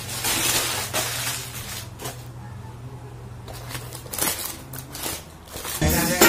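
Crumpled white packing paper and plastic crinkling and rustling as it is pulled out of a cardboard box and tossed aside, in irregular handfuls. Near the end a burst of music comes in.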